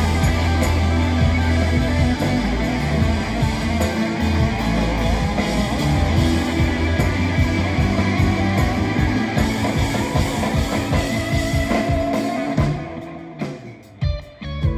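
Live rock band playing loud, with electric guitars, bass and drum kit. About thirteen seconds in the band drops out suddenly, leaving a few scattered guitar notes and hits.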